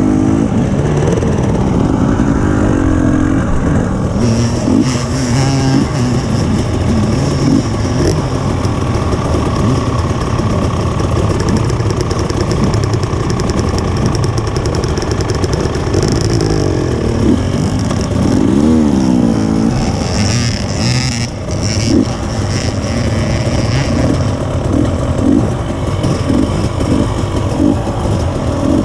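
KTM 300 EXC TPI two-stroke enduro bike engine running at low speed, the throttle blipped so its pitch repeatedly rises and falls, with other dirt bikes' engines running close by.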